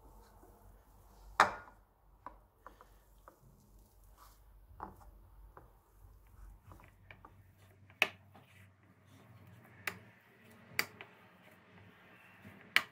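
Kitchen utensils knocking and clicking at irregular intervals, a handful of sharp knocks with the loudest about one and a half seconds in.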